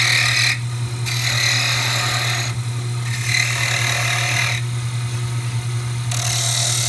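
Wood lathe running with a steady low hum while a hand chisel cuts into the spinning Norway maple thimble blank in four passes of about a second each, cutting it to length.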